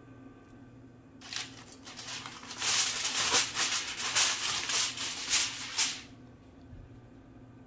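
Aluminium foil crinkling as it is peeled back off a foil baking pan; the rustle starts about a second in, gets louder and stops abruptly about six seconds in. A steady low hum runs underneath.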